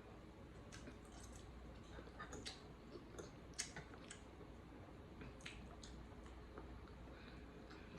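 Faint, scattered wet squishes and small clicks of someone chewing and handling saucy seafood boil.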